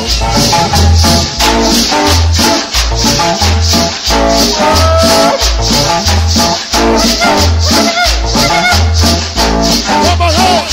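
Instrumental cumbia: a bass line moving in steady, even notes under a pitched lead melody, with a maraca-like shaker keeping a quick, regular beat.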